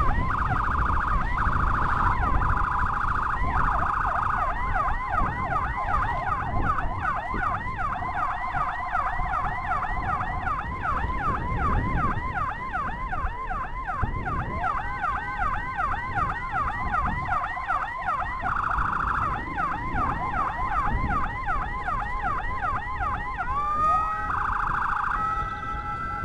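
Escort motorcycle's electronic siren on a fast yelp, rapid rising sweeps about five a second, over engine and road noise. Near the end it changes to a tone that glides up and holds.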